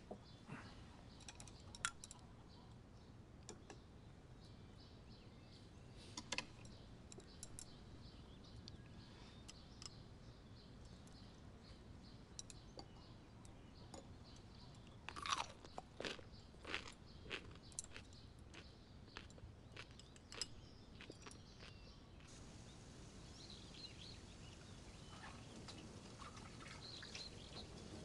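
Faint eating sounds from a rice breakfast: chewing, with scattered clicks of chopsticks and dishes and a cluster of sharper clicks about halfway through.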